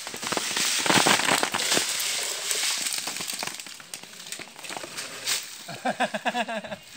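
Loud rustling and crackling of a date bunch in a net bag being lowered on a rope, brushing through the palm fronds and down the trunk, with a sharp knock about five seconds in. Near the end a man calls out briefly.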